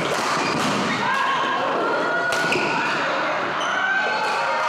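Badminton play in a large indoor hall: several sharp racket hits on the shuttlecock, and players' shoes thudding on the court floor.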